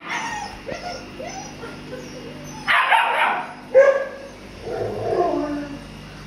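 White Swiss Shepherd puppies yipping and whimpering, short high calls repeated throughout, with a sharp yelp just before four seconds in and a longer falling whine after it. A brief rustling noise comes about three seconds in.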